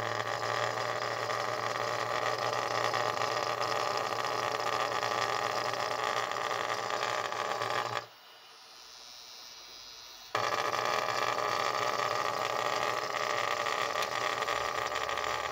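Broken cooling fan on a Creality Ender 3D printer's hotend, running with its blades sheared off, giving a loud, steady buzzing noise that is not normal for the fan. About eight seconds in it cuts out suddenly, then returns just as suddenly about two seconds later.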